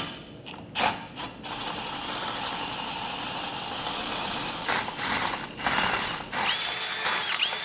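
Cordless drill boring a 9/16 in. hole through the steel frame rail, running steadily for a few seconds and then in short stop-start bursts, with a steady high whine near the end.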